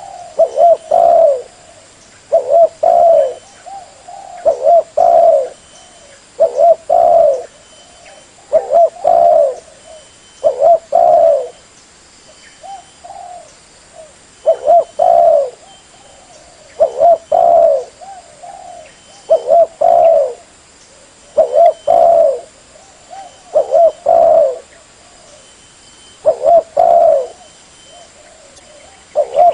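Spotted dove (tekukur) cooing over and over: phrases of two or three low coos about every two seconds, the call used as a lure to attract wild tekukur.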